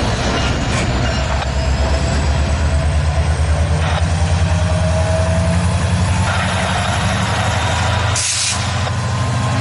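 BRC GP23ECO diesel locomotive's engine running as it moves past with cars in tow, a low, steadily pulsing note with a faint whine rising slowly above it. A short burst of air hiss comes about eight seconds in.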